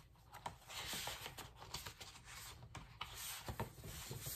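Sheets of cardstock sliding and rubbing against each other as they are spread out by hand, with a few light taps.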